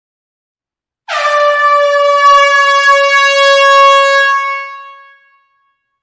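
Air horn sounding one long blast of about three and a half seconds: a single steady note with strong overtones that starts about a second in and fades out near the end.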